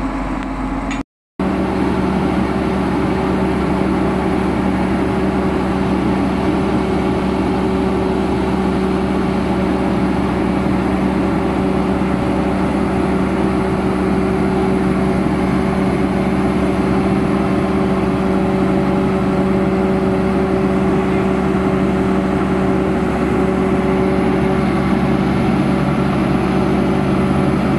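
Heavy diesel engine of a Liebherr crawler crane running steadily under load with a constant drone while counterweight slabs are hoisted on chains. The sound cuts out for a moment about a second in.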